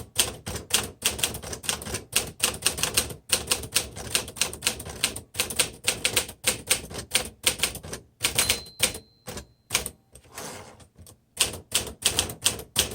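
1950 Smith Corona Silent manual typewriter being typed on: rapid, uneven keystrokes, several a second. The typing pauses about eight and a half seconds in for a short steady ringing tone and a brief scraping rush, then resumes for about a second and a half of keystrokes.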